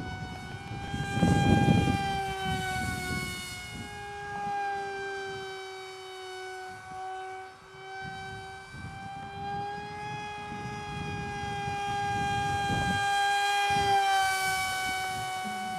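RC delta flying wing's small electric motor and propeller whining in flight, the pitch drifting slightly up and down and getting louder as the plane passes close near the end. Wind rumbles on the microphone about a second in and again near the end.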